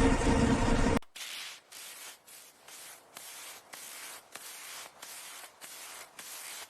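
Background music cuts off abruptly about a second in. It is followed by a steady run of short, hissy scraping strokes, about two a second.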